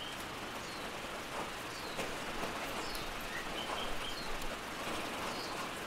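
Steady rain patter in the background with a few short, high bird chirps scattered through it.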